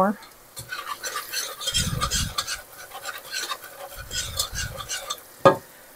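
A utensil stirring in a saucepan, scraping and clinking against the pot in quick uneven strokes, as extra flour is mixed in to thicken a cream sauce. There is a single sharp knock near the end.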